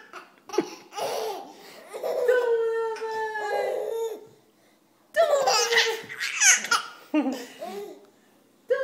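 Baby boy laughing hard in several bouts of belly laughter, each a second or two long with short breaks between, set off by a playful pillow attack.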